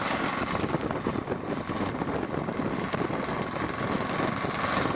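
Footsteps crunching through deep snow, an irregular run of soft steps, over steady wind and handling noise on the microphone.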